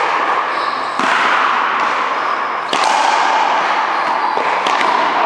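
Racquetball rally: a hollow rubber ball cracking off racquets and the wall, three sharp hits about two seconds apart, echoing in a large hall over a steady hiss.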